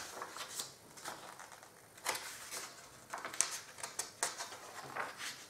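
Pages of a glossy paper instruction booklet being turned and handled, giving a series of irregular rustles and crinkles.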